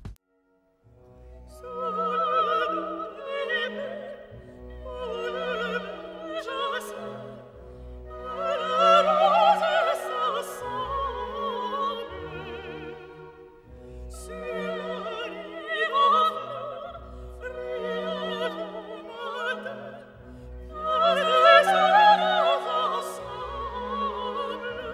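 Operatic singing with strong vibrato over an orchestra, in phrases of a few seconds each; the music starts about a second in after a brief silence.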